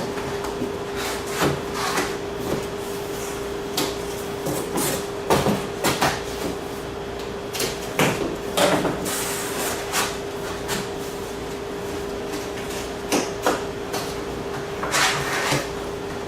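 Cardboard display panels being handled and folded, their tabs pushed into slots: scattered knocks, scrapes and rustles, over a steady hum.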